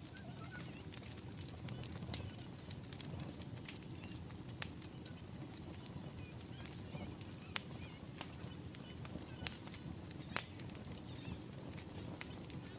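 Wood fire crackling: scattered sharp pops and snaps over a low steady rumble, with a few louder pops.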